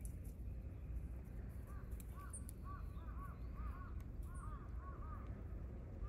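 Animal calls: a run of short, arching notes in quick groups of two or three, starting a couple of seconds in, over a low steady rumble.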